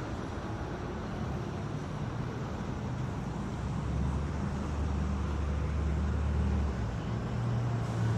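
Urban road traffic: a steady rumble of vehicle engines, with a deeper engine drone swelling about halfway through and a slightly higher one near the end.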